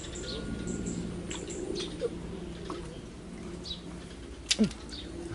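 Small birds chirping again and again over a steady low hum, with one short, sharp sound falling in pitch about four and a half seconds in.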